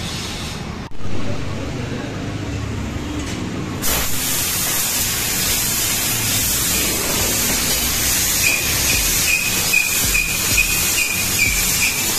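Senfeng fiber laser cutter's cutting nozzle hissing steadily with assist gas, starting suddenly about four seconds in after a low machine hum; from about eight seconds in a faint high whine sounds over the hiss.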